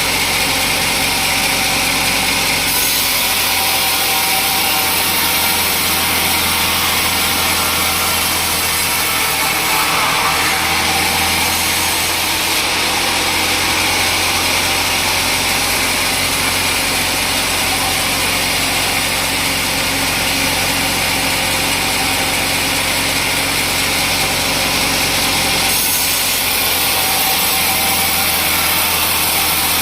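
Sawmill machinery running steadily with a saw cutting through teak wood: a constant engine hum under a loud hissing cut, changing in tone a few times as the cut goes on.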